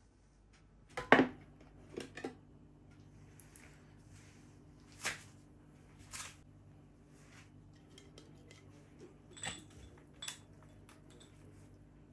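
Several separate sharp knocks and clinks of kitchenware being handled and set down, the loudest about a second in, over a faint steady hum.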